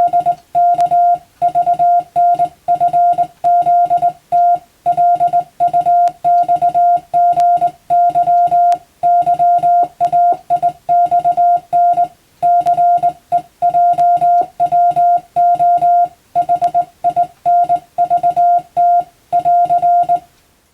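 Morse code (CW) tone, a single steady pitch keyed rapidly on and off in dots and dashes, grouped into characters and words with short gaps. It stops just before the end.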